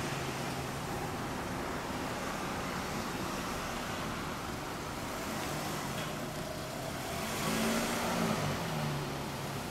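Honda CBX1000's air-cooled DOHC 24-valve inline six-cylinder engine idling steadily through a Dungani aftermarket exhaust, with one brief blip of the throttle near the end.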